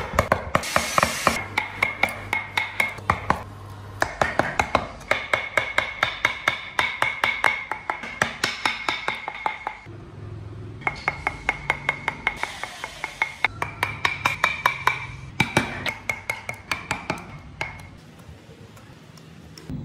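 Carving chisel cutting into a small hardwood piece: runs of quick, sharp taps, about three to four a second, stopping and starting every few seconds.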